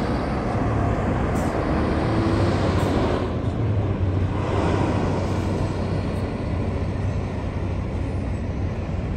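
A coach bus's diesel engine running as the bus drives along the runway: a steady low drone with road and exhaust noise, easing off a little toward the end as it moves away.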